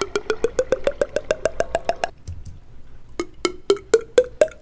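Cartoon sound effect of pitched percussive knocks climbing in pitch: a quick run of about eight a second for two seconds, then after a short pause a slower climbing run of about four a second.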